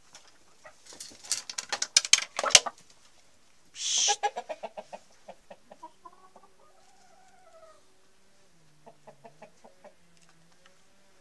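Domestic chickens in a coop: a loud flurry of rapid sharp sounds between one and three seconds in, a loud burst about four seconds in, then a drawn-out wavering call and a few soft clucks.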